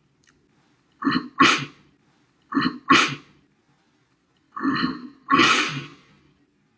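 A man's choking fit on grated Parmesan. There are three explosive bursts, each a short catch followed by a loud blast, and the last one is the longest.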